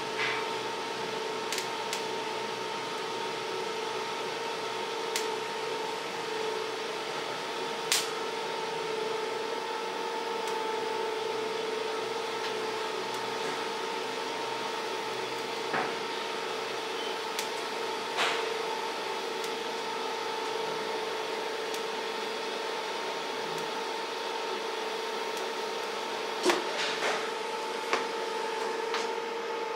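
TIG welding: a steady electrical hum and hiss from the welding set and arc while a bead is laid with filler rod. A few short sharp clicks break in here and there, several of them near the end.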